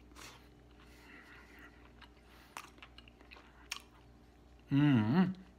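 A man chewing a mouthful of grilled souvlaki in pita bread, faint soft mouth sounds with a few small clicks, then a long appreciative "Mmm" near the end.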